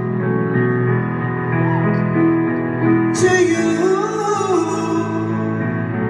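A woman singing a slow ballad to solo piano accompaniment, performed live through an arena sound system.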